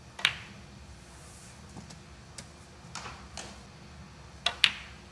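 Snooker balls clicking during play: a sharp click about a quarter second in, a few faint taps through the middle, and a loud pair of clicks near the end, as the cue tip strikes the cue ball and ball strikes ball.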